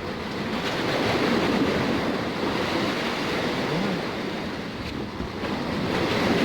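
Sea surf washing in, with wind buffeting the microphone; the noise swells about a second in and again near the end.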